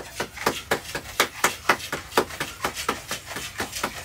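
One person clapping hands steadily in welcome, about four claps a second.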